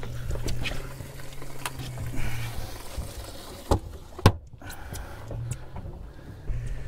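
A red grouper being handled and laid on a fiberglass boat deck: scattered clicks and two sharp knocks about three and a half and four seconds in, over a steady low hum.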